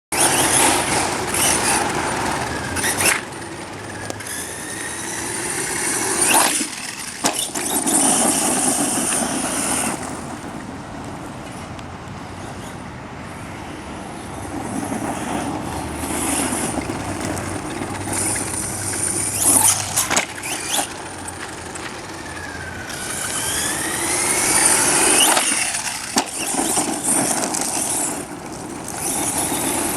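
Brushless electric motor of a Redcat Volcano EPX Pro 1/10-scale RC monster truck whining, rising and falling in pitch as the throttle is worked, over a steady hiss of tyre noise. Several sharp knocks come through as the truck lands small jumps and bashes over bumps.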